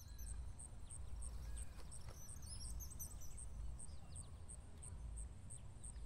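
Small songbirds chirping and twittering outdoors, with a thin high note repeated evenly a couple of times a second, over a steady low rumble.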